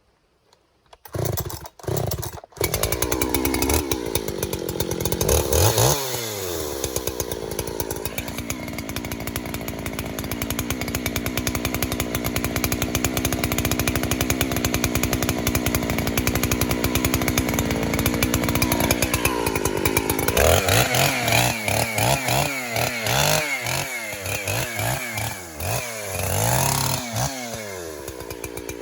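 Chainsaw pull-started, catching after a couple of short bursts, then revved. It runs at a steady pitch for about ten seconds as it cuts into a poplar trunk, then revs up and down repeatedly near the end.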